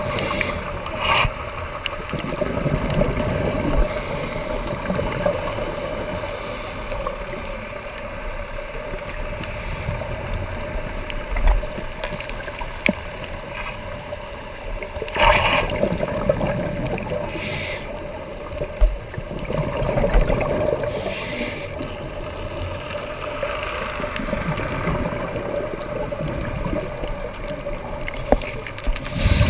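Underwater sound on a scuba dive: a steady low rumble and hum, broken a few times by short gurgling bursts of bubbles from a diver's regulator exhaust.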